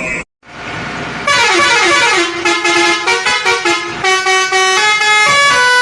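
A loud horn plays a quick tune of stepped notes. It starts a second or so in, after a brief drop to silence.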